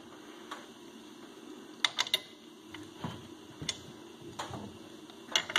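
Scattered light clicks and taps of hardware and tools being handled while a coil-spring shock is being mounted in a snowmobile's rear skid frame. About nine short clicks in all, with a quick run of three about two seconds in and a close pair near the end.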